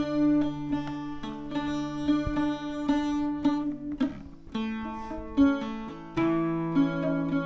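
Background music led by a plucked string instrument, a guitar-like picked melody over held low notes.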